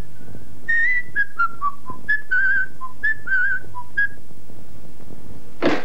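Whistling of a short, jaunty tune: clear notes stepping down in pitch, some held with a wavering vibrato. The phrase repeats, then stops about four seconds in. A brief loud sound follows near the end.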